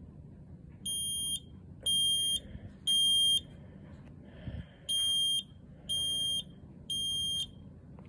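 Kidde i1040 smoke alarm sounding its test alarm: two sets of three short, high beeps, the standard three-beep evacuation pattern, partly muffled by a hand cupped over the unit.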